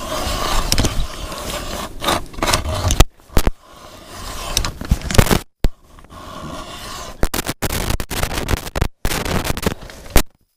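Hand ice auger grinding and scraping through thick pond ice as its crank handle is turned, in uneven strokes with sharp scrapes. The sound cuts out abruptly several times, a sign of the microphone failing.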